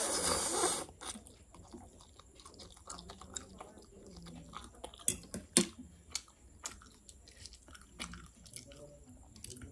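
A person slurps in a forkful of instant noodles in a loud, noisy suck in the first second. Then she chews with scattered small wet mouth clicks, and a couple of sharper clicks come about five seconds in.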